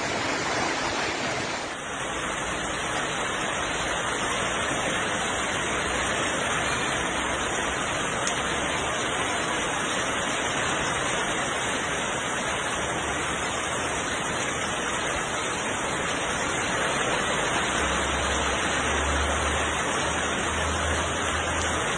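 Heavy tropical-storm rain pouring steadily onto a corrugated roof, with runoff spilling off the roof edge. A low rumble comes in near the end.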